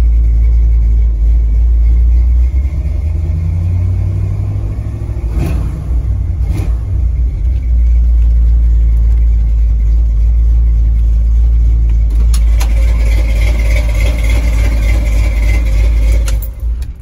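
1969 Ford F100's rebuilt 302 Windsor V8 with long-tube headers running, heard from inside the cab as a deep, steady rumble that eases off in the middle and comes back up. Near the end it is shut off with the key and dies away.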